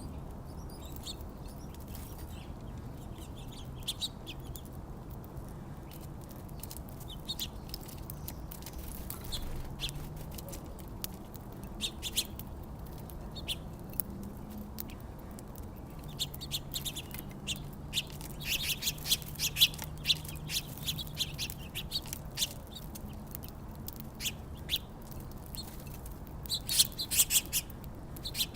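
Small birds chirping with short, high calls that come in quick clusters, busiest about two-thirds of the way through and again near the end.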